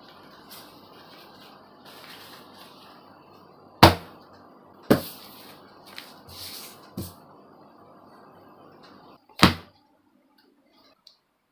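Things being put down and handled on a plastic cutting mat: four sharp knocks, the loudest about four seconds in and near the end, with short rustles of cloth and paper between them. A steady hiss sits under it and stops shortly before the last knock.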